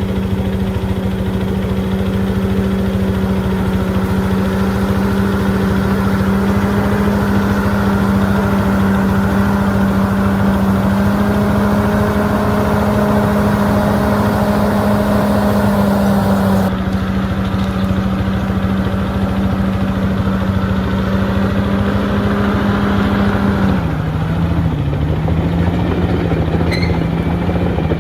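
Diesel engine of a heavy earthmoving machine running at steady high revs. About 24 s in, its pitch drops a little and settles lower.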